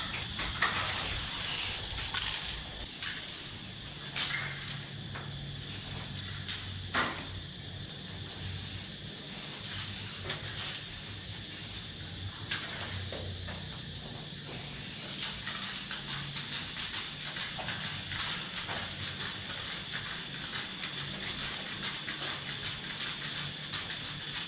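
Aerosol spray paint cans hissing as letters are sprayed onto a wall, with a few sharp knocks and clicks along the way.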